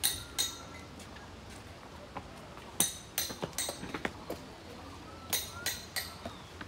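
Sharp metallic clinks in short runs of about two to three a second, each with a brief high ring.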